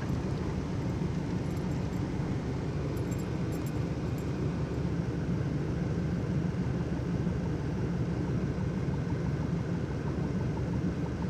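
Subaru car engine running with a steady low drone, heard from inside a car's cabin.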